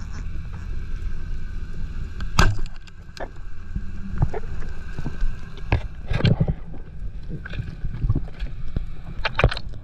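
Underwater, a steady low rumble with a sharp crack about two and a half seconds in as a wooden speargun fires. Several more clicks and knocks follow.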